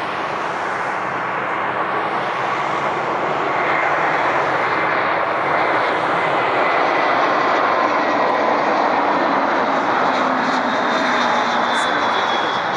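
A jet airliner's engines passing: a steady rushing noise with faint whining tones, which swells a little about four seconds in and eases near the end.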